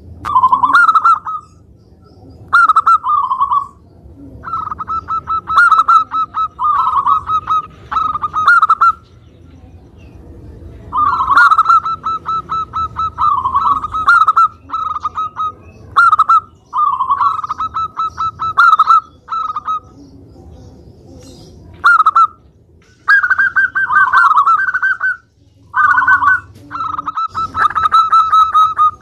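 Zebra dove (perkutut) singing: repeated phrases of rapid staccato cooing notes, each about a second long, with short pauses between them and longer breaks about ten and twenty seconds in.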